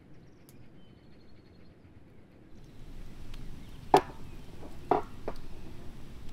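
Wood campfire crackling, with a few sharp knocks from a large metal cooking pot being handled; the loudest knock comes about four seconds in and another about a second later.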